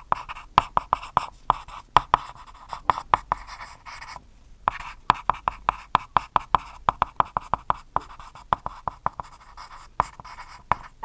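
Rapid scratching and tapping strokes, like a pen writing on paper, several a second, with a short pause about four seconds in.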